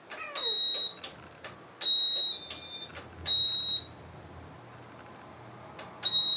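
Casablanca Gemini ceiling fan's piezo beeper sounding a series of short, high beeps, one stepping up to a higher second tone, between sharp clicks, as the Teletouch control puts the fan into demo mode.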